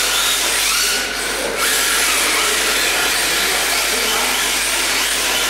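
Two rear-wheel-drive RC drift cars running in tandem, their electric motors whining up and down in pitch as the throttle is worked through the drift, over a steady hiss from the sliding tyres. The sound drops briefly about a second in.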